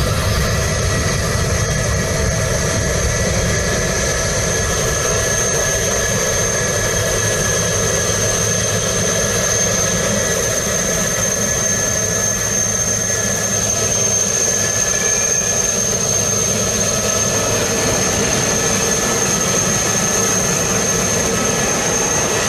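Airliner jet engines running steadily: a constant low rumble with a high, even whine over it.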